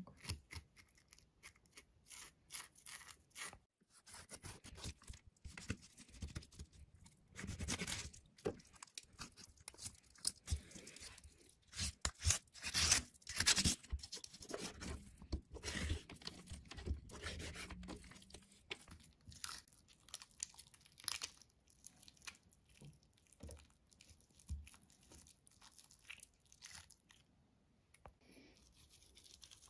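A kitchen knife scraping scales off a raw fish, then cutting the fillets away from the backbone on a wooden cutting board. The scraping and crunching strokes are irregular, and they thin out in the last several seconds.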